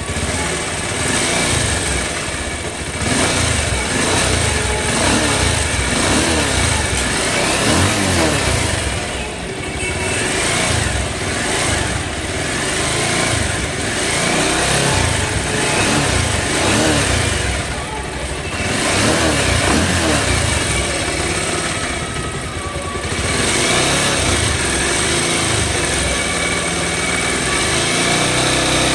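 Bajaj Pulsar 220F's single-cylinder engine running and being revved up and down several times. It has the abnormal 'crack sound' that the mechanic blames on a worn balancer weight, to be cured by fitting a new balancer and resetting the balancer gear timing.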